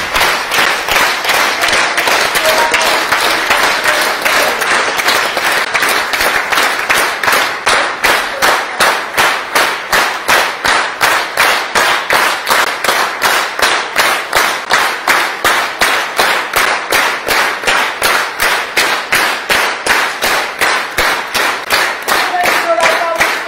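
Theatre audience applauding at a curtain call, the clapping turning after several seconds into a steady rhythmic clapping in unison.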